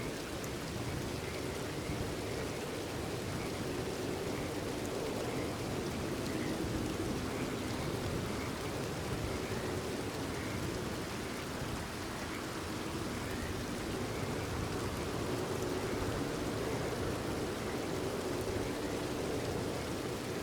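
Steady rain falling, with frogs calling over it in short repeated croaks.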